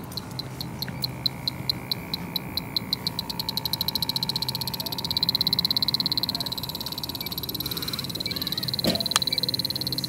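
Bacharach H10 Pro refrigerant leak detector ticking, the ticks speeding up from a couple a second into a rapid, nearly continuous high beep as its probe picks up a trace of gas; whether this is a real leak or a false hit on the beer case is uncertain.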